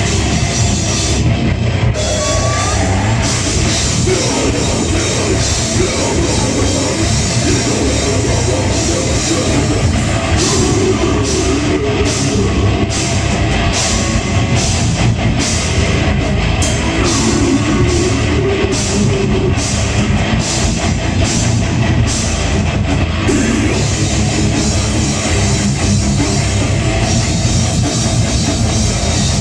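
A heavy metal band playing live, with distorted guitars and a drum kit, loud and steady. Through the middle stretch the drums hit regular accents about twice a second.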